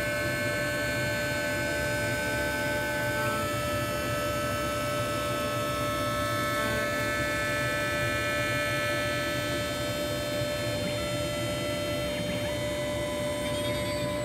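CNC machine's spindle and end mill cutting a pocket through a metal plate: a steady whine made of several high tones, which change pitch every few seconds as the tool moves along its path.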